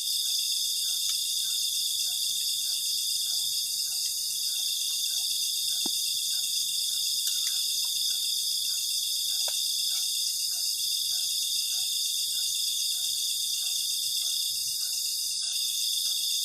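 Night chorus of field crickets: a dense, steady high trill, with a fainter lower call pulsing about twice a second.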